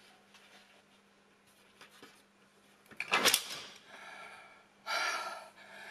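A plastic cat flap in a door pushed open by hand with a sudden clatter about three seconds in, followed by a second, breathier sound near the end.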